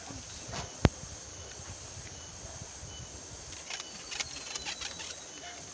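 Steady high-pitched hiss of an insect chorus, with a sharp click a little under a second in and a few faint ticks near the end.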